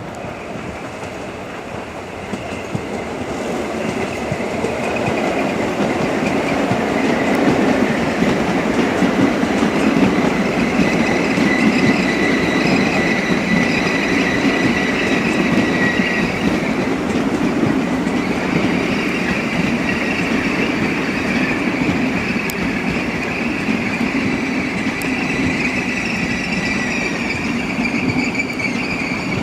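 ICE 4 high-speed trainset rolling past slowly with its wheels squealing on the rails: high, held squeal tones over the steady rolling noise of the wheels. The sound swells over the first several seconds, then stays loud.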